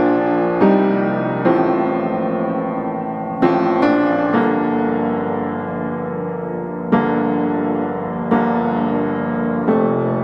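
Background music: solo piano playing slow sustained chords, a new chord struck every one to two seconds and left to ring.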